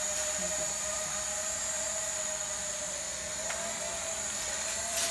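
HJ28 toy mini quadcopter hovering, its small motors and propellers whining steadily with a high buzz. The pitch sags slightly midway and rises again near the end, where there is a brief click.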